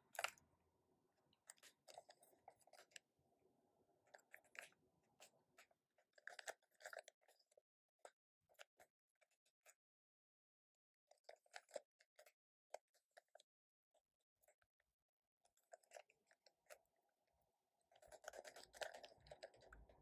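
Faint clicking and rattling of a plastic 3x3 Rubik's cube as its layers are turned by hand through a sequence of moves. The clicks come in short clusters with brief pauses, and the busiest cluster comes near the end.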